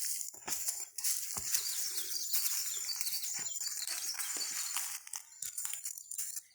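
Close rustling and scratching with many small clicks, starting abruptly and breaking up about five seconds in, over a thin steady high insect tone.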